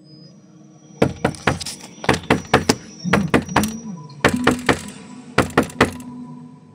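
Heavy fist knocking on a door: five quick bursts of three to five hard knocks each, loud and insistent.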